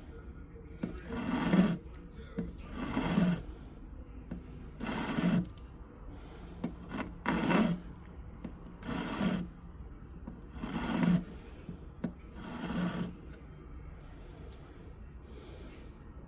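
Metal hand file rasping across an 18-karat gold ring in slow, even strokes, about one every two seconds, seven in all, stopping about 13 seconds in.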